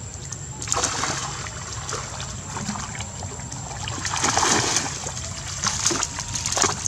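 Water splashing as macaques scuffle and wrestle in shallow muddy water, in bursts about a second in, around four to five seconds in, and again near the end.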